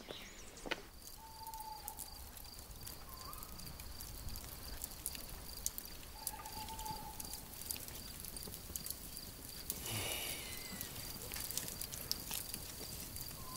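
Faint night-woodland ambience: an insect chirring steadily in an even pulse throughout, with sparse crackles and pops from a campfire and a couple of brief, faint calls.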